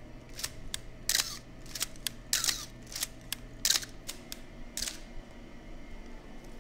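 Canon AE-1 Program 35 mm film SLR being worked by hand: sharp mechanical clicks and four short rasping strokes of the film advance lever being wound, with the shutter firing between them.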